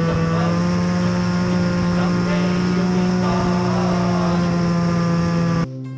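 Snowmobile engine running steadily, with a faint melody over it; the engine sound stops abruptly near the end.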